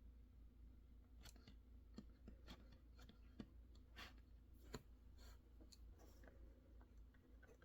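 Faint desk-work sounds: about a dozen scattered, irregular clicks and short scratchy strokes over a low steady hum.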